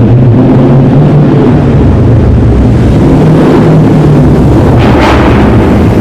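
Dodge Charger Scat Pack's 392 HEMI V8 with a muffler delete, running loud and deep in a parking garage, with a short sharp burst about five seconds in.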